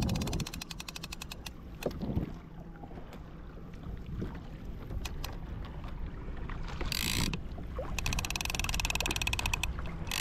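Rapid mechanical clicking in short bursts about 7 s in and again near the end, typical of a fishing reel's ratchet, over low steady water and wind noise around the kayak.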